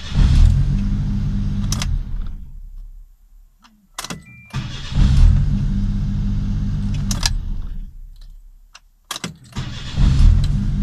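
Suzuki Jimny JA11's three-cylinder engine is started three times in a row, each time catching at once after a short crank, with key clicks before each start. The first two runs last about two to three seconds before the engine stops; the third is still running at the end. The starter turns over every time, with a relay now feeding it steadier voltage as a cure for its intermittent click-but-no-crank fault.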